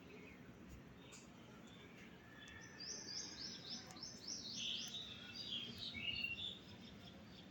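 Small birds singing and chirping: about three seconds in, a rapid run of seven or eight short, high, downward-sliding notes, then a cluster of varied lower chirps, over faint steady background noise.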